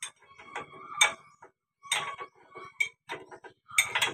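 Steel spanner working the bolts of a John Deere 5310 tractor's dozer mounting strap: irregular metallic clicks and clinks, with sharper strikes about one and two seconds in and near the end.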